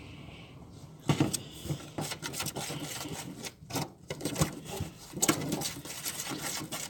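Freshly activated glue slime being pressed and pulled by hand, giving a run of small sticky clicks and pops that start about a second in.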